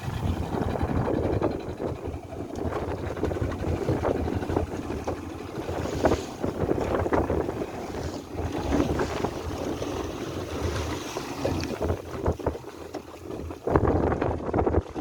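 Gusty wind buffeting the microphone, with water lapping against a small boat.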